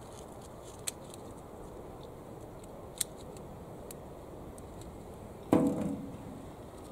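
A handful of green cherry tomatoes dropped into a wheelbarrow tub, landing with a sudden thud and a brief ring of the tub a little past five seconds. Before it, two short sharp clicks, about a second in and again near three seconds.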